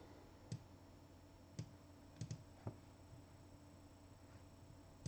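Near silence with five faint, sharp clicks spread over the first three seconds, two of them close together: handling of a trading-card box and its pack being opened.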